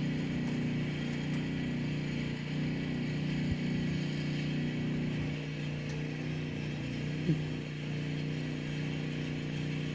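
Vehicle engine idling steadily, a low even hum, with one brief squeak about seven seconds in.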